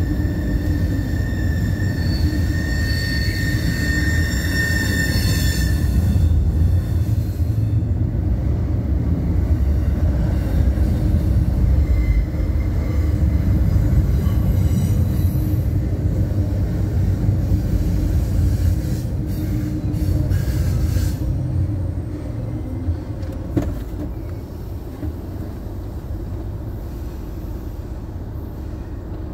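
Double-stack intermodal freight train rolling past at a crossing: a steady heavy rumble and rattle of the well cars on the rails, with a high wheel squeal over the first six seconds. The rumble falls away after about 22 seconds as the end of the train goes by.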